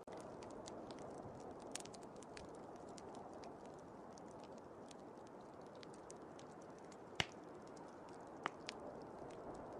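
Fire crackling with many small scattered pops and two louder snaps near the end, over the steady rushing of blizzard wind.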